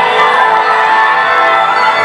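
Loud music playing, with crowd noise underneath.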